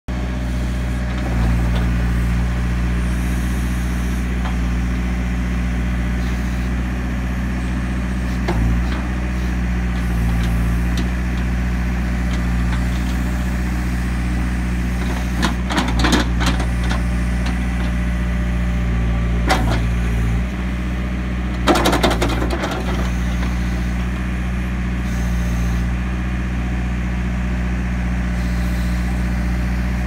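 2008 New Holland LB95B backhoe loader's diesel engine running steadily as the backhoe boom and bucket are worked, its note picking up under hydraulic load about a second in. A few sharp metal clanks from the boom and bucket linkage come midway through.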